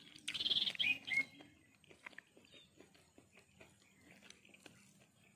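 A bird chirps briefly about half a second in, then faint small clicks and smacks of fingers picking apart fried fish on rice and of chewing.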